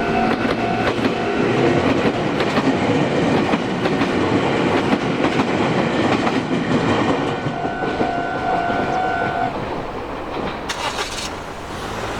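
A Japanese level crossing's electronic warning bell ringing its repeated two-tone clang while a Meitetsu electric train passes over the crossing, wheels clattering on the rails. The bell stops about nine and a half seconds in as the train noise dies away. A short hiss follows near the end.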